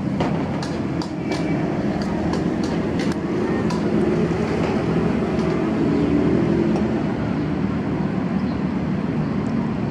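Steady low engine rumble of road traffic running through, with light clicks and clinks of cutlery and glass over the first few seconds.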